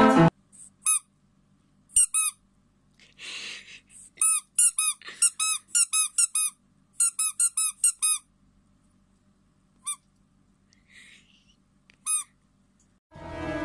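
Pink rubber squeaky pig toy squeezed by hand, giving short high squeaks, some single and some in quick runs of about four a second. A brief soft rustle comes about three seconds in.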